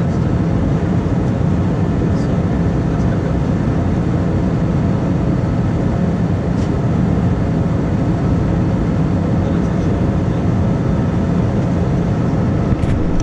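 Steady low drone inside the cabin of an Airbus A320-200 in flight, heard from a seat over the wing: jet engine and airflow noise, unchanging throughout.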